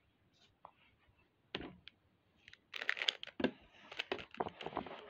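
A 3x3 plastic puzzle cube handled on a table: a single knock about a second and a half in, then the cube's layers turned rapidly by hand in a quick run of plastic clicks and clatters.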